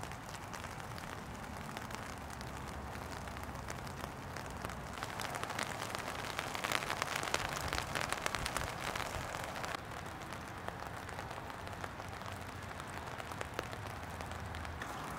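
Gentle rain falling, a steady patter of many drops. The patter grows louder and denser about five seconds in and drops back a little before ten seconds.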